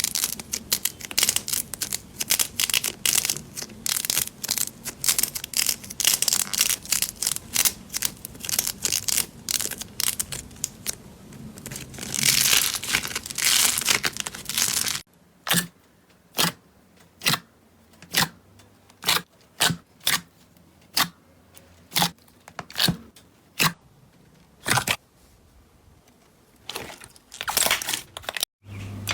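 Slime being squeezed and kneaded, with dense continuous crackling for the first half. After a cut it gives way to a run of separate sharp pops, about one to two a second, as slime is pressed and poked.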